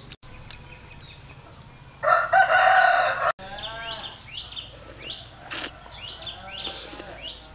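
A rooster crows once, loudly, about two seconds in, the crow breaking off abruptly after about a second and a half. After it, birds chirp in short calls about twice a second.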